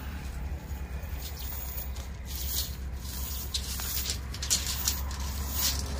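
A monofilament cast net and its lead-sinker hem being gathered up and dragged over gravel: irregular scraping, rustling and crunching. A low steady rumble runs underneath.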